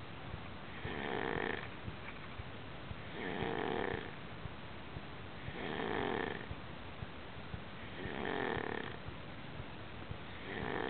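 Snoring in sleep in a slow, even rhythm: a snore about every two and a half seconds, each lasting under a second, five in all.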